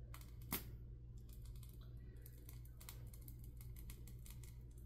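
Faint crinkling and clicking of a plastic piping bag being squeezed as lightweight spackle is piped out. One louder click comes about half a second in, over a low steady hum.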